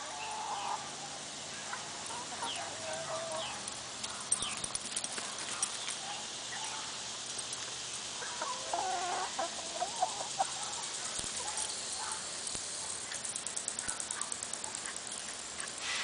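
Chickens clucking softly now and then, with a short run of calls about nine seconds in.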